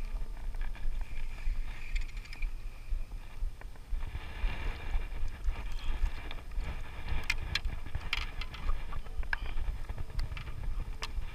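Wind buffeting an action-camera microphone and water moving against a paddleboard at sea, a steady low rumble, with several sharp clicks and taps in the second half as the spinning reel and sabiki rig are handled.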